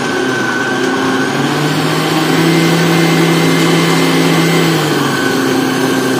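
BQ countertop jug blender motor running, blending milk and fruit into a smoothie. Its speed steps up about a second and a half in and drops back about five seconds in as the speed knob is turned.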